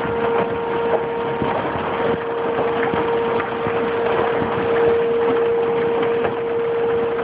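Heavy hail and rain pounding down, a dense hiss dotted with many sharp clatters of hailstones striking hard surfaces. A steady hum runs underneath.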